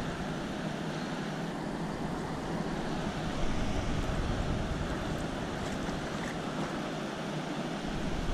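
Steady rush of river water flowing out below a dam, heard as an even wash, with some wind buffeting the microphone.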